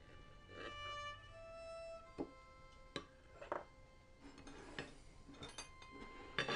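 Quiet violin music with long held notes, with a few light knocks and clinks of a cake knife and a plate as a cake is cut and a slice is served.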